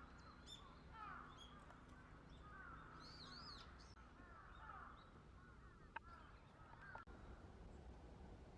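Wild birds calling faintly: a run of short, arched call notes repeated for about the first seven seconds, with higher, thinner calls above them. Two sharp clicks come near six and seven seconds in.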